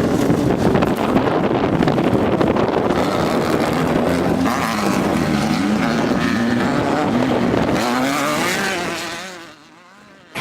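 A 1600-class desert racing buggy's air-cooled VW engine running hard, its pitch rising and falling again and again with throttle and gear changes, over wind and dirt noise. It fades away near the end.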